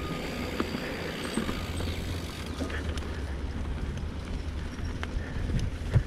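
Mountain bike rolling along a dirt singletrack: steady tyre and riding noise with a low rumble underneath and scattered small clicks and rattles from the bike.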